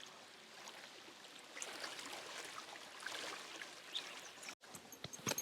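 Calf Creek running, a soft steady rush of flowing water. Near the end, a few short sharp clicks.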